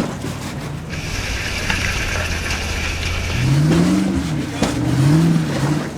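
Off-road 4x4's engine running on a rock-crawling trail, revving up and back down twice in the second half, with a high steady whine in the first half.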